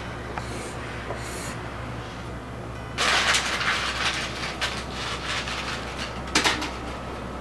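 Pen and paper worked on a wooden desk: scratchy scribbling and rustling paper that start abruptly about three seconds in, over a steady low hum.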